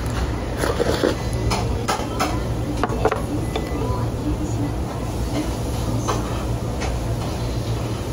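Short clicks and knocks of a small ceramic bowl and wooden chopsticks being handled and set down on a wooden table, over a steady low hum.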